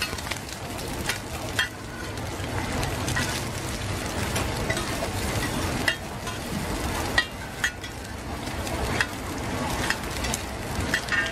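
Eggs frying in a wide metal pan of hot oil, sizzling steadily. A metal spatula and ladle scrape and clink against the pan now and then.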